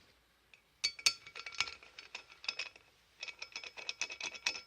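Steel hand tools clicking and clinking as a half-inch wrench is tried on a nut it doesn't fit. About a second in comes a scatter of light metallic clicks with a faint ring; after a short pause, a faster, even run of ratchet-like clicks follows near the end.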